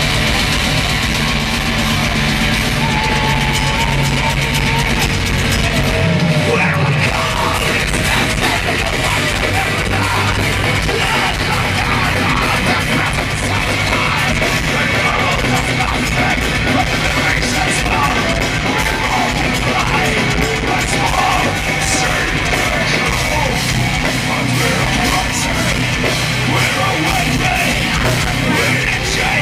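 Heavy live folk-metal band playing loudly through a festival PA, heard from within the crowd, with fans yelling close by.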